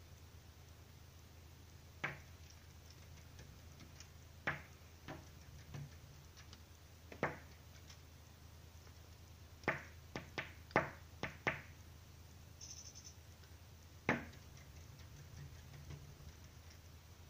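A tit pecking at window glass with its beak: about a dozen sharp single taps at uneven intervals, with a quick run of five or six about ten seconds in.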